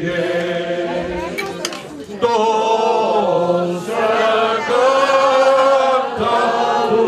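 A group of people singing together, long held notes in phrases with short breaks between them.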